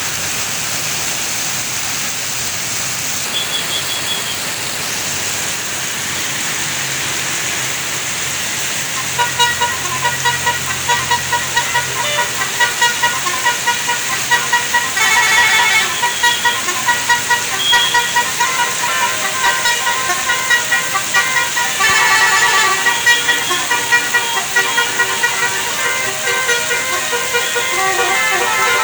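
Bus's telolet 'basuri' multi-tone horn playing a melody of rapid, pulsing notes, starting about nine seconds in, over steady road and engine noise.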